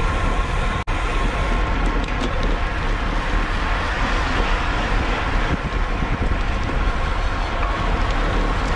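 Steady wind rush over the microphone of a racing cyclist's camera, heaviest in the low end, with a brief dropout about a second in.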